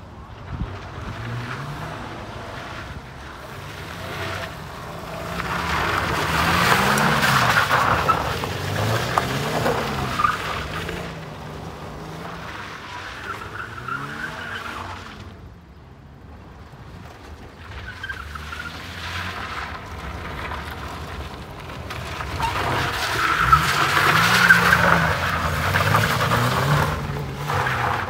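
Rear-wheel-drive rally car driven hard on a loose gravel stage, its engine revving up and dropping again and again through the corners, with tyres skidding and gravel scattering. It comes nearest and loudest twice, about seven seconds in and again around twenty-four seconds, and grows fainter in between.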